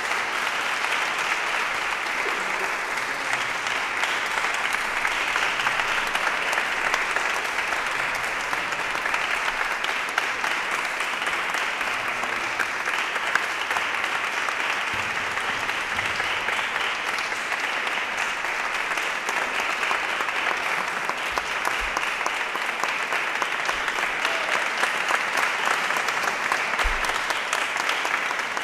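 Audience applauding with dense, steady clapping.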